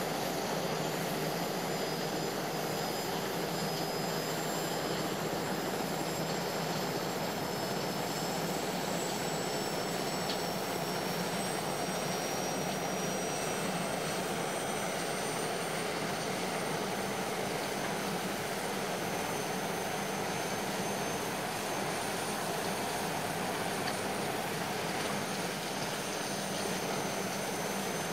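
Jet engine sound effect: a steady rushing noise with a high whine that slowly rises in pitch.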